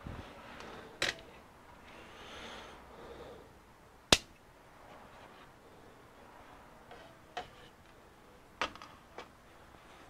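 Handling noise from a computer mounting bracket being lifted off and put down: a handful of short clicks and knocks with faint rustling, the sharpest knock about four seconds in.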